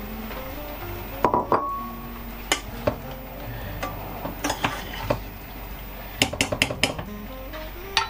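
Metal spoon clinking and scraping against a bowl and a stainless steel saucepan as rice is spooned into the pan, with a quick run of clinks near the end. Soft background music plays underneath.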